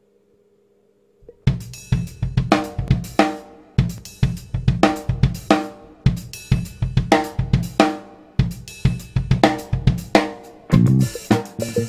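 After about a second of near silence, music starts: a steady drum-kit beat with kick, snare and cymbals, filling out with more instruments near the end.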